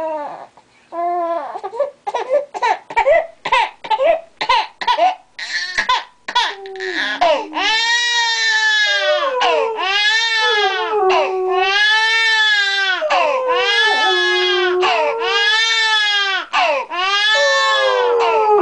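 A three-month-old baby crying in short, repeated cries; about seven seconds in, a greyhound–borzoi mix dog joins with long, arching howls, one after another, over the baby's crying.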